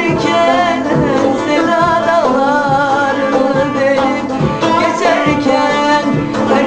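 A woman sings a Turkish song in a wavering, held melodic line, accompanied by a strummed twelve-string cümbüş and a steady beat.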